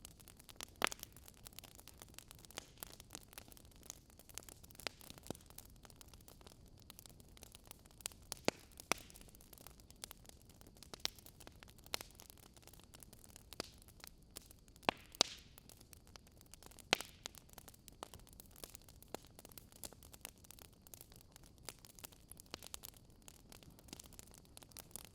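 Wood logs burning in a fireplace, crackling: irregular sharp pops and snaps over a faint, steady hiss.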